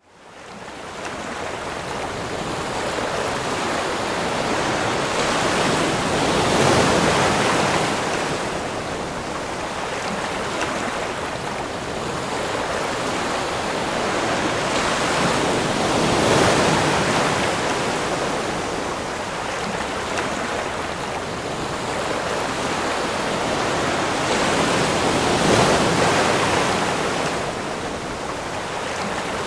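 Ocean surf, a steady wash that swells and eases in slow surges about every nine seconds, fading in at the start.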